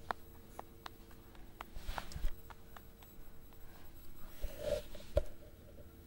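A rabbit eating budgie seeds off a carpet: scattered small clicks and crunches of seeds being nibbled, with a couple of dull bumps and brief rustles from handling.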